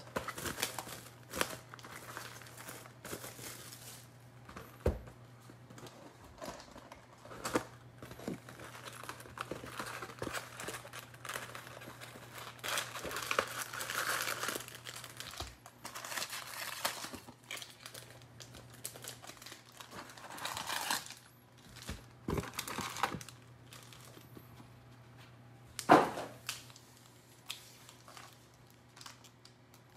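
Plastic shrink wrap being torn and crinkled off a cardboard trading-card box, then the box flaps and foil card packs are handled and rustled. Irregular crinkling with scattered taps, and a sharper knock near the end.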